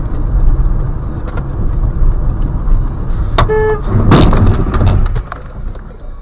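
Steady road and engine rumble inside a moving car, with a short car horn blast just past halfway, followed at once by a brief, loud burst of noise.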